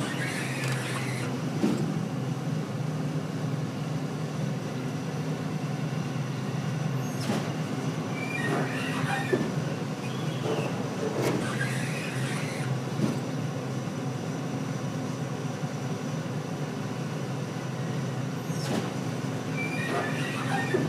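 Keith walking floor of an aluminum live-floor trailer running: a steady low drone from its drive, with metal clunks and squealing every several seconds as the floor slats shift.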